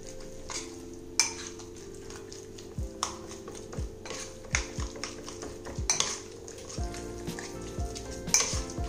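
A steel spoon stirring wet chicken mince filling in a ceramic bowl. It clinks and scrapes against the bowl's sides at uneven intervals.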